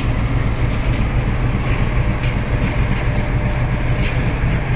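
WDG4G diesel-electric freight locomotive passing close by, its GE V12 diesel engine running with a loud, steady low drone, with a few faint clicks over it.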